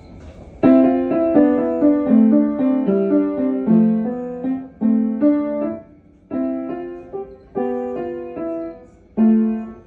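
Piano-toned keyboard played in short phrases of notes and chords, starting about half a second in, with brief pauses between phrases in the second half.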